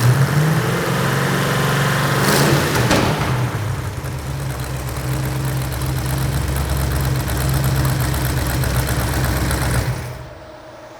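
Freshly rebuilt Ford 351 Cleveland V8 running warmed up, with a brief flare in revs about two seconds in, then shut off about ten seconds in. Its exhaust is leaking at the headers, which the builder puts down to cheap stamped-steel header gaskets that didn't seal.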